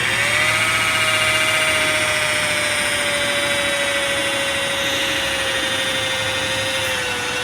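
Adjustable-speed 7-inch rotary buffer spinning up and running on a low speed setting while polishing a plastic headlight lens with compound. Its motor whine rises as it starts, holds steady with a slight sag, and drops a little in pitch near the end.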